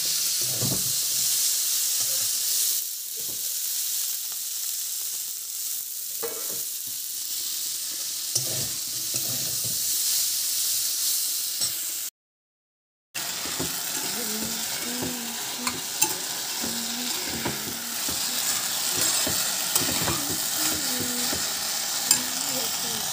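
Vegetables sizzling as they fry in oil in a kadai, with a metal spatula stirring and scraping the pan and now and then knocking against it. The sound cuts out completely for about a second midway, then the sizzling and stirring go on.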